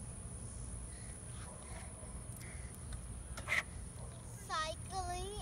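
A child's high-pitched voice calls out several times near the end, in short cries that bend up and down in pitch, over a steady low outdoor rumble and a thin, steady high insect buzz. A single sharp click or knock comes about three and a half seconds in.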